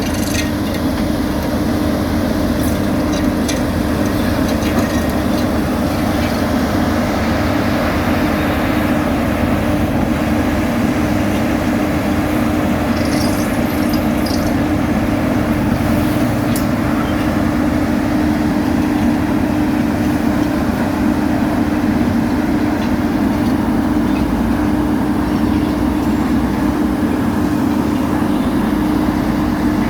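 Heavy road-construction machinery running steadily at an asphalt-paving site: a diesel engine with a strong, unchanging hum.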